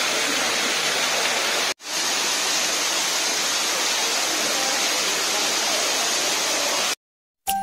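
Steady rush of falling water, as from an indoor waterfall, cut off for an instant about two seconds in and stopping abruptly near the end.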